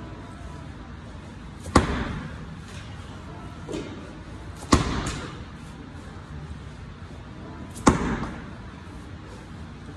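Slam ball thrown down hard onto a rubber gym floor three times, about three seconds apart, each a sharp thud with a short echoing tail, and a softer knock between the first two.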